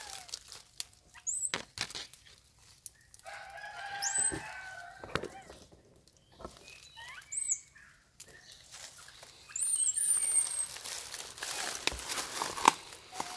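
A baby long-tailed macaque crying in short, very high-pitched squeals every few seconds, one drawn out for about a second near the end. A longer, lower call sounds around three to five seconds in, among scattered rustles and snaps of branches.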